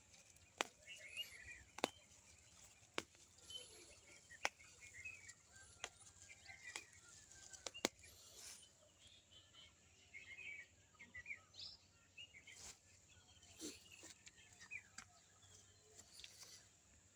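Faint birds chirping, with a dozen or so sharp clicks scattered among the calls.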